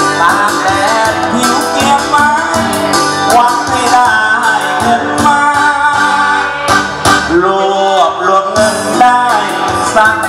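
A man singing a Thai song into a microphone, backed by band music with guitar and a steady beat.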